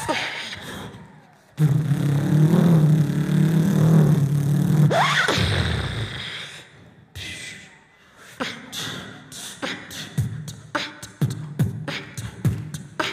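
Beatboxing into stage microphones. It opens with a long low vocal bass drone that ends in a sharp upward sweep. About halfway through, sharp vocal drum hits take over in a quick, quickening rhythm.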